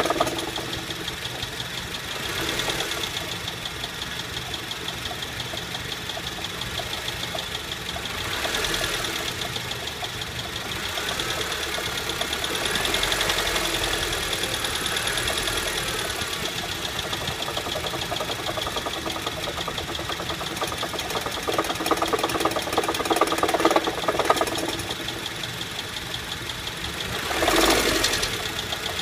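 2008 Honda Civic engine running with a loud, fast, even ticking knock; the owner traced it to a failing AC compressor bearing, which later seized. The sound swells louder a few times, most strongly near the end.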